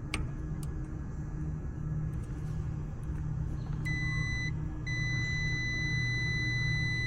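Multimeter continuity beep: a steady high-pitched tone sounds about four seconds in, breaks off briefly and then holds to the end, as the meter leads find continuity across the compressor's winding terminals. A steady low rumble sits underneath throughout.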